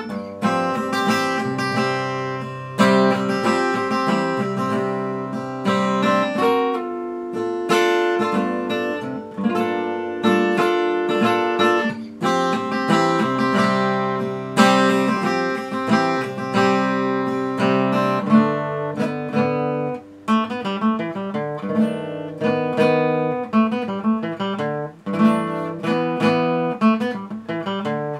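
Acoustic guitar music: chords picked and strummed, each one left ringing before the next.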